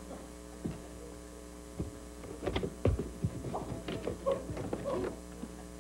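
Steady electrical mains hum, with scattered small knocks, taps and rustles of products being handled in a cardboard box, most of them in the second half.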